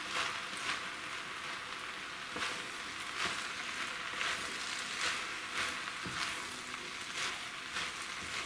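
Rice and vegetables sizzling steadily in a wok over a low flame, with a spatula scraping and turning them in repeated irregular strokes.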